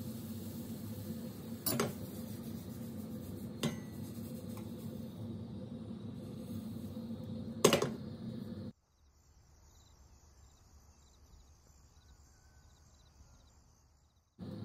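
Kitchen cooking sounds as pancake batter is ladled onto a nonstick frying pan: a steady hum with three sharp clinks of a metal ladle against cookware, the loudest about eight seconds in. About nine seconds in the sound drops to a faint hiss.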